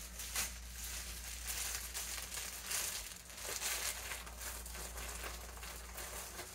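Clear plastic packaging bag crinkling as it is handled and worked open, with many irregular small crackles throughout.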